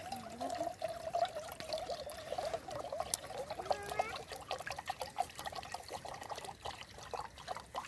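Water being poured into a container for tea, a trickling, gurgling pour that is strongest in the first half and thins out after about four seconds.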